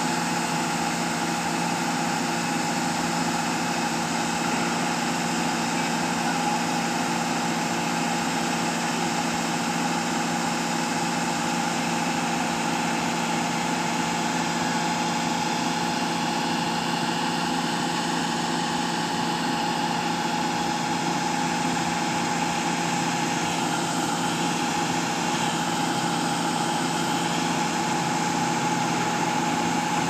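The diesel engine of a SANY truck-mounted concrete pump running steadily, with a constant high tone over the engine drone.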